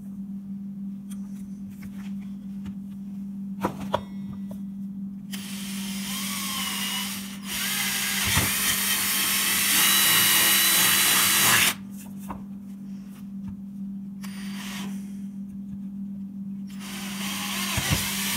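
Power drill boring a hole through 2-inch PVC pipe. The motor starts about five seconds in with a wavering whine, turns loud and rough as the bit cuts into the plastic for about four seconds, then stops abruptly; it starts again near the end. A couple of sharp knocks come shortly before the first run, over a steady low hum.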